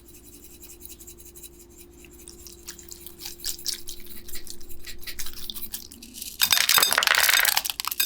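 Sticky slime being squished and stretched by hand, making wet clicks and pops that grow busier and louder. About two-thirds of the way in it turns into a much louder, dense crackling squelch.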